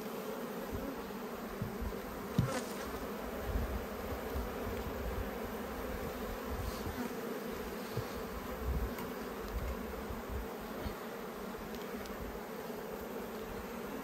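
Honeybees buzzing steadily in a mass around an opened Langstroth hive, with a sharp knock about two and a half seconds in.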